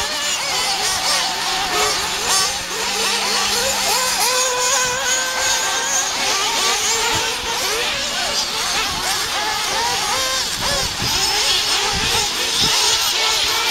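Several nitro RC buggies' small glow engines running at high revs, their whining pitches overlapping and rising and falling as the drivers work the throttle.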